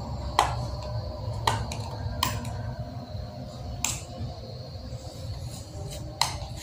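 Sharp plastic clicks and taps from a small loose-powder jar and its lid being handled and opened, about five of them spread irregularly, over a steady low hum.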